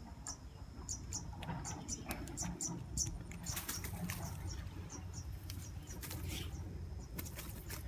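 A freshly landed tilapia flapping and thrashing on grass and a plastic bag: many quick, irregular slaps and rustles.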